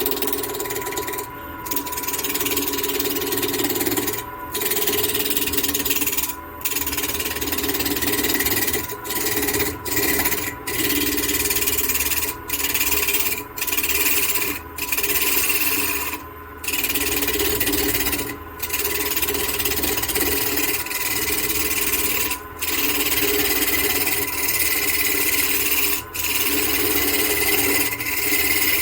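Wood lathe spinning a block of western cedar at about 1,300 RPM while a spindle gouge cuts it round: a steady motor hum under rough, rasping cutting noise. The cutting breaks off for brief moments every few seconds as the tool lifts off the wood.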